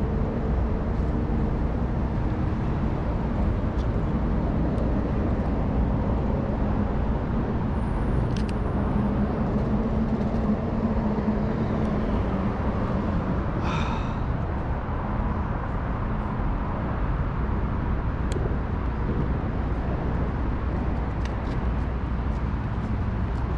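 Steady rumble of road traffic, with an engine hum that fades out a little before halfway and a short high squeak a little past halfway.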